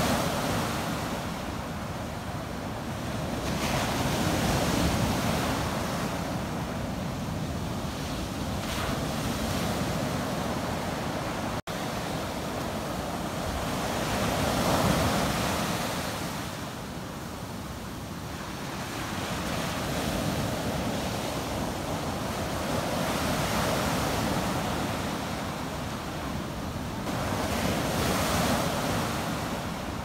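Sea surf breaking and washing up onto a sandy beach: a continuous rush of foaming water that swells and eases every several seconds as each wave comes in. The sound cuts out for an instant about twelve seconds in.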